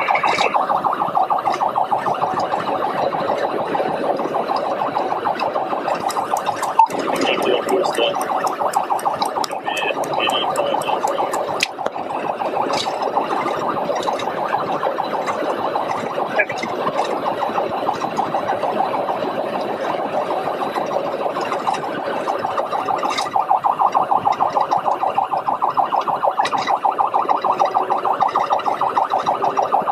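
Police patrol car siren sounding continuously in a fast, rapidly pulsing pattern. A run of sharp clicks comes in about seven to twelve seconds in.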